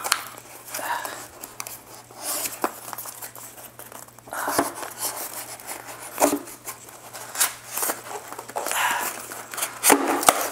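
Brown kraft paper wrapping being torn and crinkled off a cardboard shipping box, with the box handled and turned on the table: irregular rustling and ripping bursts with occasional sharp clicks and knocks.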